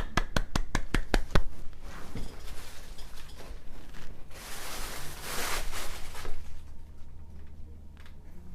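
Hands clapping at about six claps a second, stopping about a second and a half in. A few seconds of rustling noise follow.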